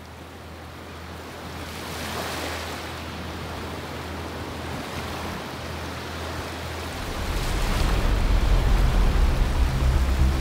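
Ocean surf washing up on a sandy beach, fading in at the start; about two-thirds of the way in, a deep low rumble joins it and the sound grows louder.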